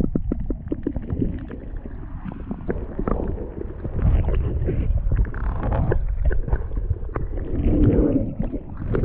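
Muffled sound of water heard by a camera microphone held under the surface: low sloshing and gurgling with irregular knocks and bumps. Near the end the camera comes out of the water and the sound opens up again.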